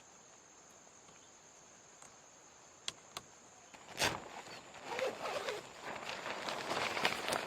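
A steady high insect drone over near quiet, with two small clicks, then a sharp knock about four seconds in followed by irregular rustling footsteps that grow louder.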